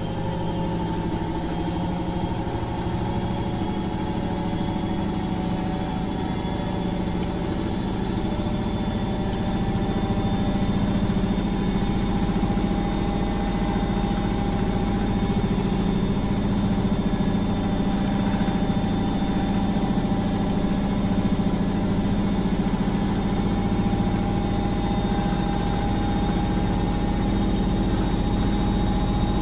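Washing machine running steadily: a low rumble and hum under several thin motor whines that creep slowly upward in pitch, getting a little louder after about ten seconds.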